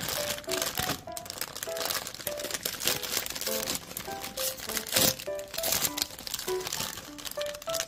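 Plastic Samyang Buldak instant-noodle packet crinkling as it is handled and torn open, with a cluster of sharper crackles about five seconds in. Light background music plays under it.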